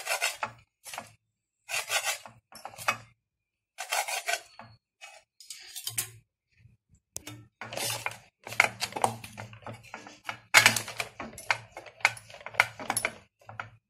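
White bread slices being pressed and trimmed by hand with a kitchen utensil on a board: a series of short rubbing and scraping strokes, closer together in the second half.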